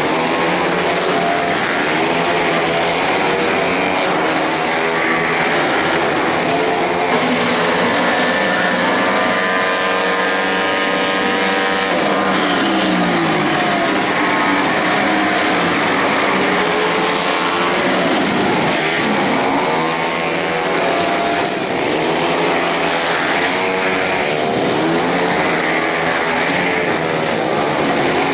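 Several small racing motorcycles revving hard as they race past, their engine notes overlapping and rising and falling as the riders accelerate and shift. One engine drops in pitch as it passes, about halfway through.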